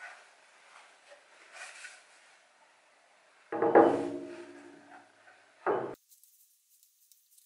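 Plywood board set down on a sliding table saw's metal table: a loud knock about halfway through, ringing on and fading over about a second, then a second, shorter knock. Faint handling rubs come before them.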